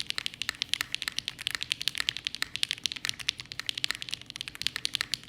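Mechanical keyboard with Zaku linear switches typed on quickly, a fast run of sharp clacky keystrokes, several a second. The switches' long pole stems and 63.5 g double springs make the bottom-out poppy and loud.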